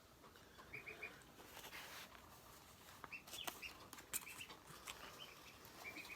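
Ducklings peeping faintly in short runs of two or three high peeps, several times over, with a few soft clicks between.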